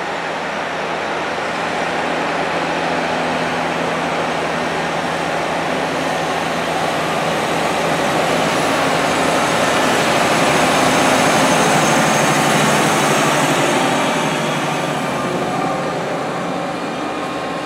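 Deutz-Fahr 9340TTV tractor's six-cylinder diesel engine running under load as it pushes corn silage up a pile with a front dozer blade, a steady machine noise that grows louder towards the middle and eases off near the end.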